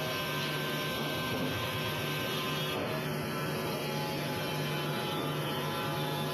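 Band sawmill running steadily, a continuous mechanical drone with a constant hum.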